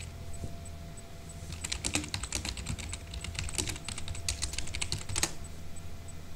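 Typing on a computer keyboard: a quick run of keystrokes starting about a second and a half in and stopping about five seconds in, over a low steady hum.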